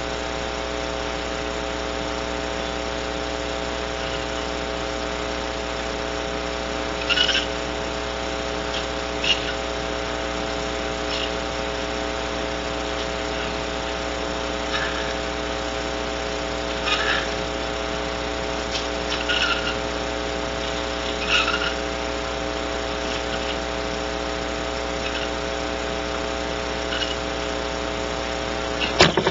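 Steady electrical hum of many fixed pitched tones from a barn owl nest-box camera's audio feed. A few brief, faint chirps are scattered through it, and a quick burst of sharp clicks and knocks comes right at the end.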